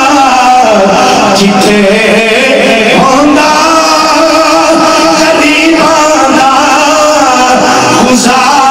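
A man's amplified voice singing a melodic devotional chant, with long held and gliding notes.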